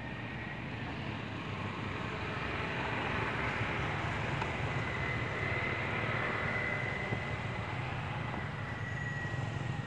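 Steady low hum under an even hiss, with a faint high tone that comes in midway and fades near the end; no distinct chewing or animal calls stand out.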